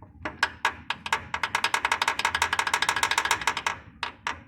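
Rapid metallic clicking from the opened Jetta engine, which has wiped connecting-rod bearings. The clicks start a few a second, speed up to about ten a second, then slow and stop near the end.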